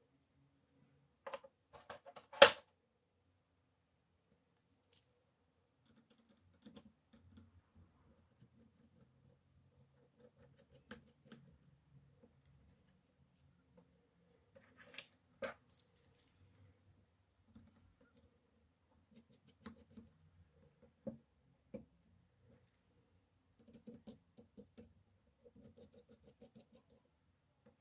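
Scattered small clicks and taps of hand tools and parts on an iPhone 6 during a screen replacement. The loudest is one sharp click about two seconds in.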